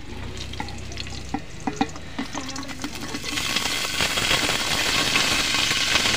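A few light metal clinks from the steel bowl, then about three seconds in a loud sizzle builds and holds as wet chopped jackfruit pieces are tipped into hot oil in the pot.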